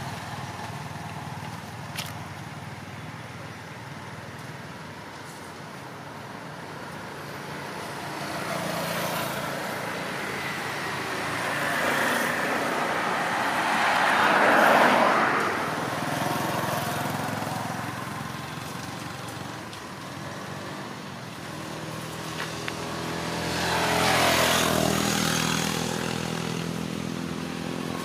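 Road traffic: vehicles passing by, each swelling and then fading, twice, once about halfway and again near the end, the second with a steady engine hum.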